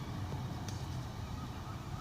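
Class 150 and Class 153 diesel multiple units idling at the platform: a steady low engine rumble, with a light click about two-thirds of a second in.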